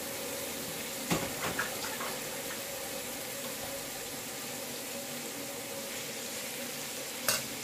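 Minced beef with onion and garlic sizzling steadily in hot oil in a wok. A few light knocks come about a second in, and there is one sharp click near the end.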